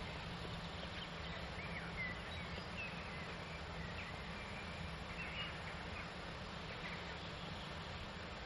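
Rural outdoor ambience: birds chirping in short scattered calls over a steady low hum and an even background hiss.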